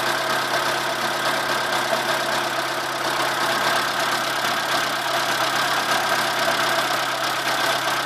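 Chevrolet Corsa 1.0 8V VHC engine idling steadily, with a steady high whine over the running.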